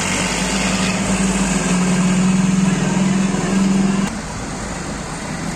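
Farm tractor's diesel engine running hard with a steady note as it pulls a heavily loaded trolley through mud. About four seconds in, the engine note drops and gets quieter.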